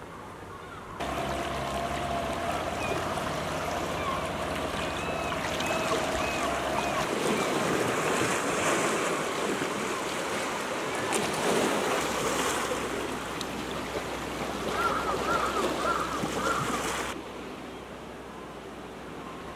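Sea water washing and lapping against rocks and a small pier, an even rush of water that starts suddenly about a second in and cuts off near the end, with a few short high chirps over it.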